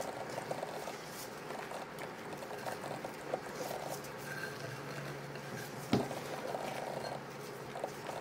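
Silicone spatula folding cocoa powder into thick macaron batter in a glass bowl: soft, wet, sticky crackling and scraping as the batter is turned over and pressed against the bowl. One sharp knock about six seconds in.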